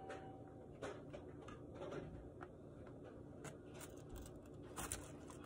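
Faint food-preparation handling at a kitchen counter: a few soft, scattered clicks and taps over low room noise.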